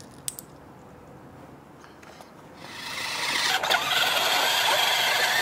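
Electric ride-on toy car's motor and gears whining as it drives over brick paving, coming in about two and a half seconds in and growing louder as it approaches, then running steadily.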